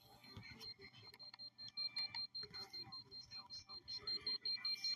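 Handheld EMF meter's alarm beeping rapidly at a high pitch, signalling a high field reading. The beeps come clearer about a second and a half in.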